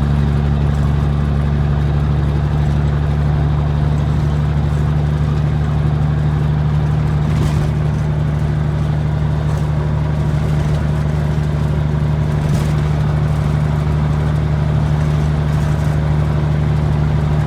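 Cummins 855 Big Cam diesel in a 1973 Kenworth W900A semi running under way at a steady speed: a loud, deep, even drone that holds the same pitch throughout.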